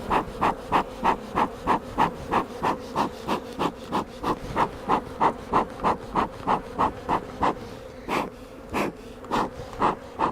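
Honey bees buzzing in a steady hum around an open, agitated hive. Over it, a loud regular puffing repeats about three to four times a second, then turns slower and uneven about eight seconds in.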